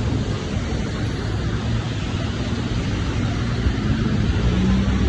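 Steady hiss of rain mixed with the low hum of traffic engines on a city street; the engine hum grows a little louder near the end.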